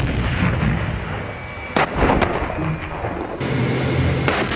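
Battle tank driving, its engine and tracks making a steady heavy rumble. Two sharp bangs come a little before halfway through and another near the end.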